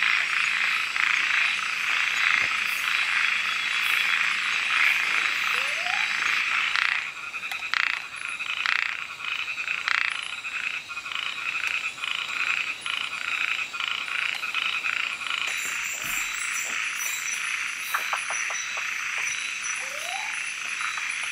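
Many frogs calling at once in a dense, rapidly pulsing chorus. About seven seconds in it thins out into more separate, clicking pulsed calls.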